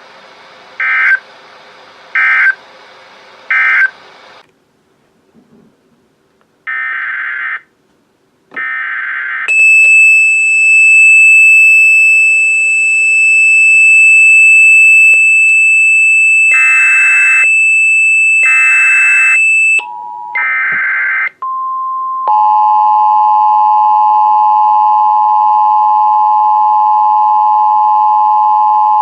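Emergency Alert System data and alert tones. Three short buzzing digital bursts come first, then further data bursts, some laid over a long steady high beep. In the last third a loud steady alarm tone of several close pitches near 1 kHz sounds: the attention signal of an EAS encoder/decoder relaying a NOAA Weather Radio warning.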